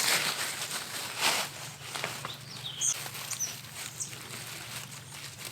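A hand scraping and rustling through loose garden soil while digging for potatoes, in a couple of short sweeps near the start. A bird gives a few short high chirps about three seconds in.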